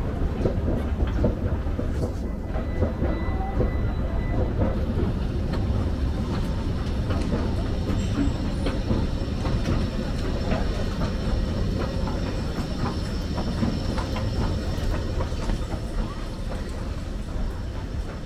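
Escalator running: a steady low mechanical rumble with many light clicks.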